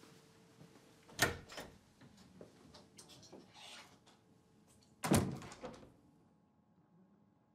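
A room door being opened and shut: a sharp clack about a second in, then a louder thud of the door closing about five seconds in, with a few faint knocks between.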